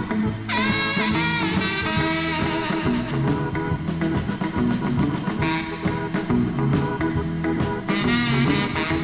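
Late-1950s instrumental rock and roll record: tenor saxophone, electric lead guitar, Hammond Chord organ, bass guitar and drums playing together over a steady beat.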